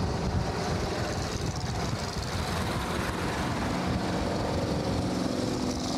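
Engine and road noise of a moving vehicle driving along a paved mountain road, a steady rumbling hiss; a faint steady low hum joins about halfway through.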